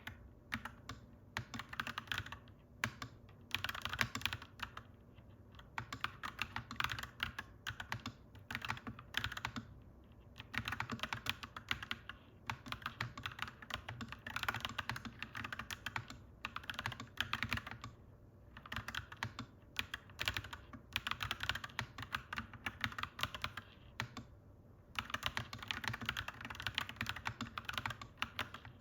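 Clacky mechanical keyboard being typed on in bursts of rapid keystrokes, each burst a second or two long with short pauses between, over a faint steady low hum.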